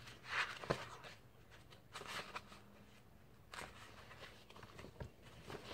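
Faint rustling and a few soft taps of a hardcover picture book being handled and opened, its cover and pages shifting in the hands.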